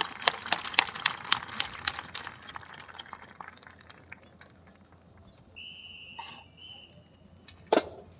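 Scattered sharp claps and clacks that thin out over the first three seconds, a brief high steady tone around the middle, then a loud sharp clack near the end, typical of drill rifles being struck and handled in a rifle drill.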